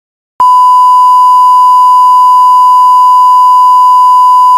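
Loud 1 kHz reference test tone, the steady sine-wave beep that goes with colour bars, cutting in suddenly about half a second in and holding at one pitch.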